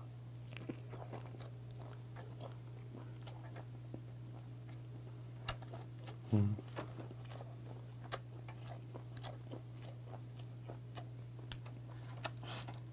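Close-miked chewing of a mouthful of gwamegi, semi-dried Pacific saury, wrapped in seaweed: many small wet clicks and crunches, over a steady low hum.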